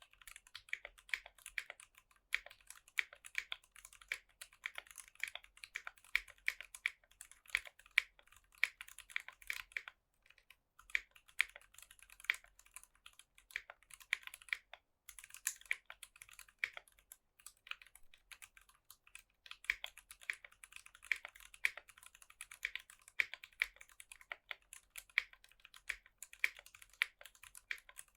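Typing on a Tofu60 mechanical keyboard with stock, unlubed Durock Koala tactile switches, an aluminum plate and PBT keycaps: a fast, uneven stream of keystroke clacks, with two short breaks in the middle.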